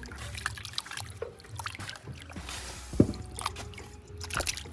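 Raw beef being washed by hand in a bowl of water: irregular splashing and sloshing with small knocks, and one sharp knock about three seconds in.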